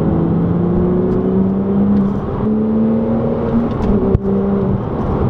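Porsche 987 Cayman S flat-six under throttle through its modified exhaust, the engine note climbing over the first couple of seconds, stepping about two seconds in, then holding and easing off. There is a single sharp knock about four seconds in. The owner finds the note still too restricted.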